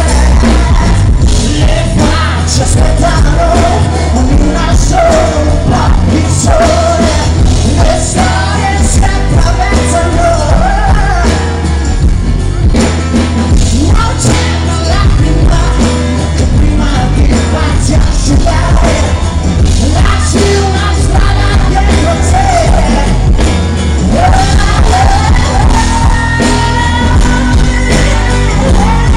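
Male vocalist singing live with a pop-rock band, with a strong bass and steady drum beat under the voice.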